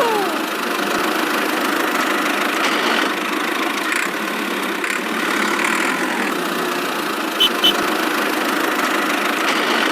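Small engine running steadily, with two short high tones about seven and a half seconds in.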